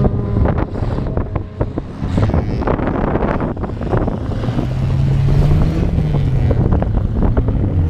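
Engines of old wreck-race cars racing on a dirt track, with wind buffeting the microphone. About five seconds in, one engine's drone swells and then falls away.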